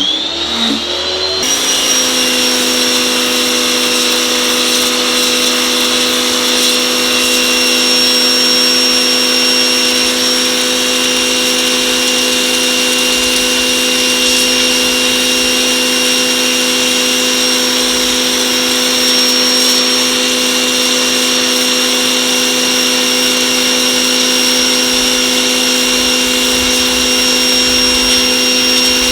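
A Mechpro 2000 W electric pressure washer spinning up, then running steadily with a constant whine over the hiss of its high-pressure water jet spraying a surface to clean off algae.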